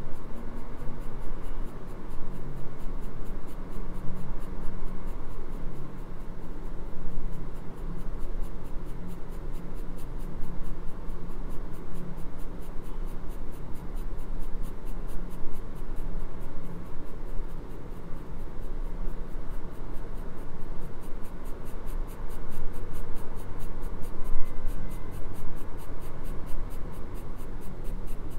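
Graphite pencil lead scratching across drawing paper in a continuous run of repeated shading strokes.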